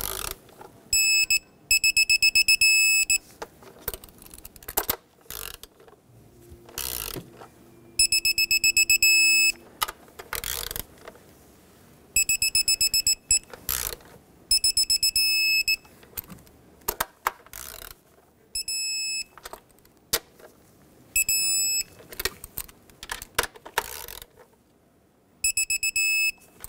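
Digital torque wrench beeping rapidly in short bursts as each intake manifold bolt reaches the set torque of 89 in-lb, about eight times. Between the bursts the wrench's ratchet clicks as it is moved from bolt to bolt.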